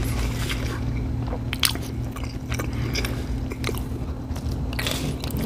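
Close-miked chewing and biting: irregular wet mouth clicks and smacks from a person eating a mouthful of food, over a steady low hum.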